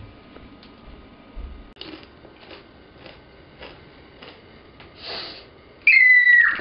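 Crisps crunching faintly, about two bites a second, as a girl chews, then near the end a girl's sudden scream: one long high cry that falls away at the end.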